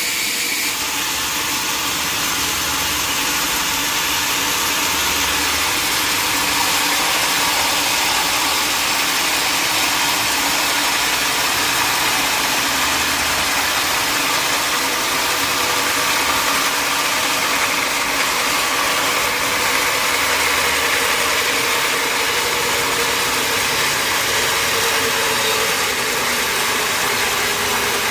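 Sawmill machinery running: a loud, steady mechanical noise with a faint hum.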